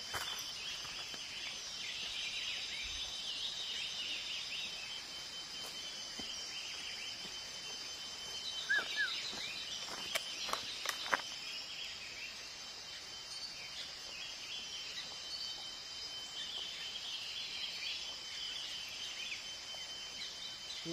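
Forest ambience: a steady high-pitched drone of insects with birds chirping over it, and a few sharp clicks about nine to eleven seconds in.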